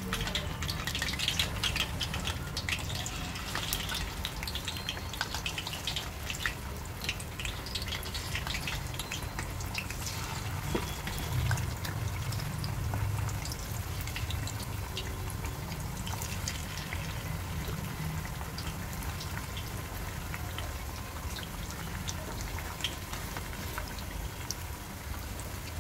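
Freshly added marinated chicken pieces deep-frying in hot oil in a kadhai, sizzling with a steady scatter of small crackles and pops, over a steady low hum.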